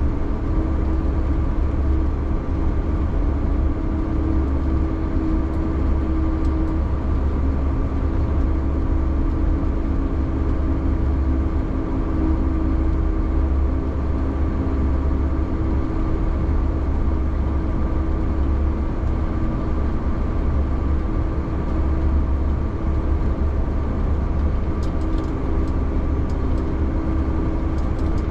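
Snowcat (piste groomer) diesel engine running steadily under way, heard inside the cab: a deep rumble with a steady whine over it.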